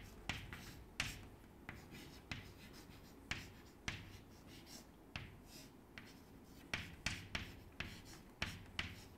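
Chalk writing on a blackboard: a faint, irregular string of short taps and scratches, a few per second, as each stroke of the letters is made.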